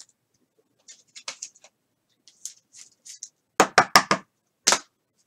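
Trading cards being handled: light rustling and soft clicks, then a quick run of sharp taps about three and a half seconds in and one more near the end.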